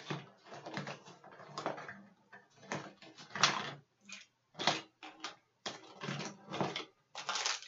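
Someone rummaging through small cosmetic items: irregular clicks, knocks and rustles as things are picked up and moved about, one louder knock about three and a half seconds in.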